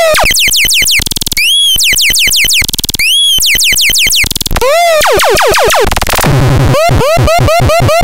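Handmade Trakandax electronic noise box putting out a loud stream of rapid buzzing clicks, overlaid with pitched chirps that swoop up and back down. About six seconds in, the pattern switches to a quicker run of short chirps, about four a second.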